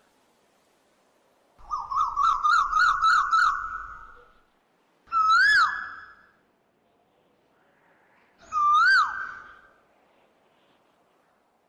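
Bird calls. A rapid trill of about seven whistled notes comes about two seconds in, followed by two single whistled notes a few seconds apart, each rising and then dropping away.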